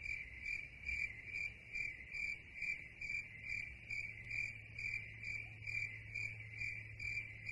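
Cricket chirping sound effect: an even, steady run of chirps, a little over two a second, the stock comedy cue for an awkward silence after a line falls flat.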